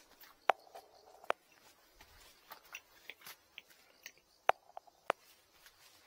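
Footsteps on a concrete and gravel path: irregular sharp clicks and light crunches, some of them with a short ring.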